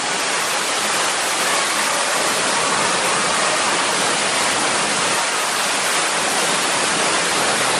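Steady, even rushing noise with no pitch or rhythm.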